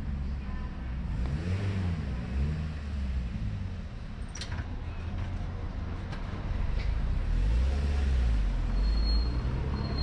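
Car engine running as a car creeps slowly along a cobbled street close by, its low hum rising and falling in pitch, growing somewhat louder in the second half. A few sharp clicks sound around the middle.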